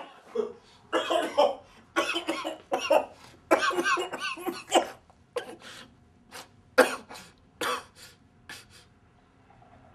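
A man's coughing fit: a dense run of hard, hacking coughs through the first five seconds, then single coughs spaced further apart that stop about a second before the end.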